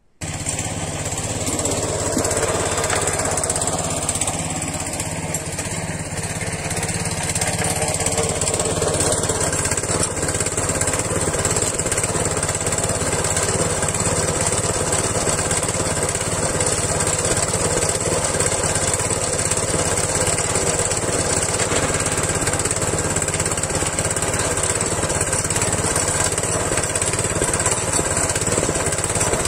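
Small single-cylinder engine of a tiller (motor hoe) running steadily; it starts abruptly.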